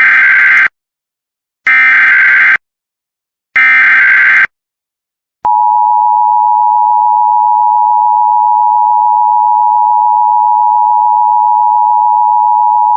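Emergency Alert System tones: three SAME digital data bursts of about a second each, followed about five and a half seconds in by the steady two-tone attention signal that heads a new alert.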